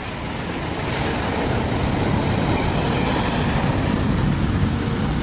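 A steady rumble and rushing noise from a large road vehicle's engine, most likely a heavy truck, building slightly over the first two seconds and then holding level.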